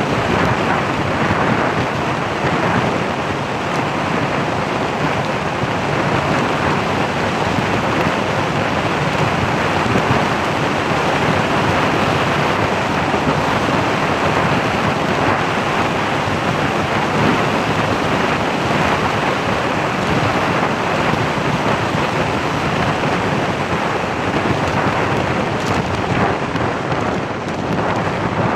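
Steady rushing wind noise on the microphone, loud and unbroken, with no distinct events in it.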